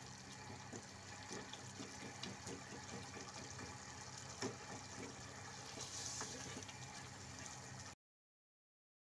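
Beef keema simmering in oil and liquid in a pot, a steady bubbling sizzle, with small ticks and scrapes from a silicone spatula stirring it. It cuts off to silence about eight seconds in.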